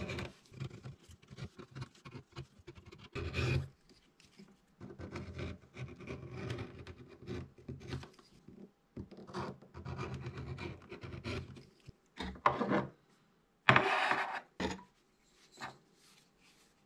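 Hand tools scraping and rubbing along the edge of a stacked leather knife sheath, in rasping runs a second or more long with short pauses. The loudest, sharpest stretch comes about 14 seconds in.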